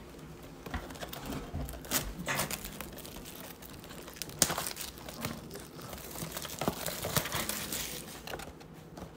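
Clear plastic shrink wrap being torn and peeled off a cardboard trading-card blaster box, crinkling with irregular sharp crackles.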